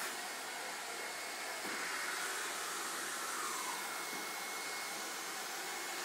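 Canister vacuum cleaner running: a steady hiss with a thin, even high whine from its motor.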